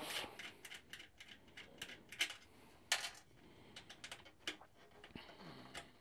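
Faint, scattered clicks and light metallic taps of a small nut being loosened and an earth lead worked free of its bolt by hand.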